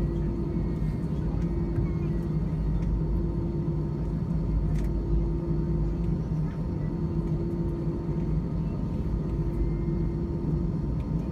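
Steady low rumble and hum of an Airbus A319's jet engines at low power, heard inside the cabin from a window seat.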